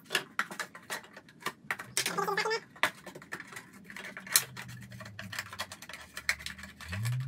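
A thin plastic bottle being cut open, first with a knife and then with scissors: a run of irregular sharp clicks, crunches and scraping snips.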